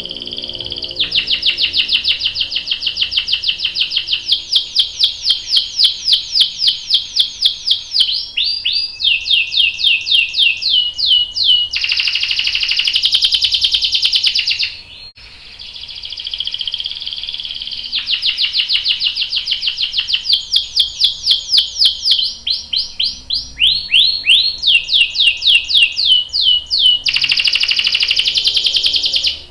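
Domestic canary singing: fast repeated trills, a few dropping glide notes, and a long rapid roll that ends each phrase. The song phrase comes twice, with a short break about halfway.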